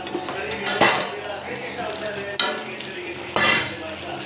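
A metal spatula stirring chicken and potato masala in a steel kadai as it sizzles, with three sharp clanks of steel on steel as the plate lid comes off and the spatula scrapes the pan.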